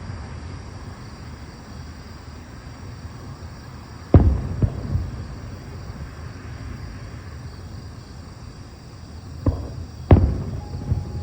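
Aerial firework shells bursting: a loud boom about four seconds in with a rolling echo after it, then two more booms close together near the end, over a steady low background rumble.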